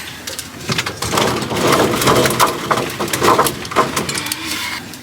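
Storage boxes being handled and shifted, making a busy run of crackling, knocking and scraping noises.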